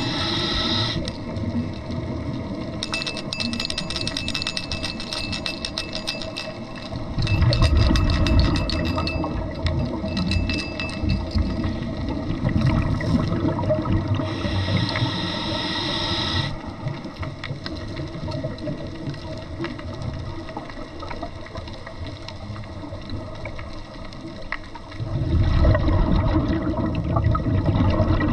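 Scuba diver breathing on a regulator underwater: the hiss of each inhalation alternates with louder, low bubbling on exhalation. The exhaled bubbles are loudest about seven seconds in and again near the end.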